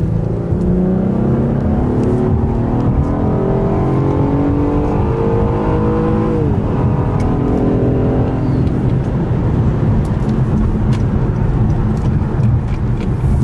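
2019 Acura TLX A-Spec's V6 under hard acceleration in Sport Plus mode, heard from inside the cabin: the engine note climbs steadily toward about 6,500 rpm, drops sharply with an upshift of the nine-speed automatic about six and a half seconds in, climbs again briefly, then settles into a steadier drone with road noise.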